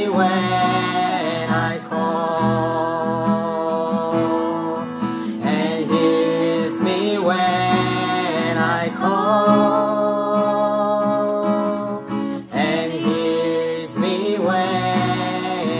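A man and a woman singing a worship song together over a strummed acoustic guitar, with a brief pause in the voices about three-quarters of the way through while the guitar carries on.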